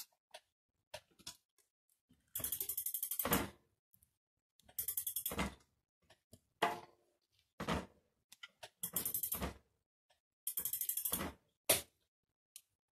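Ratchet wrench clicking in four short bursts of rapid clicks, with a few single knocks between them, as the disc brake caliper bolts are tightened with the brake lever held.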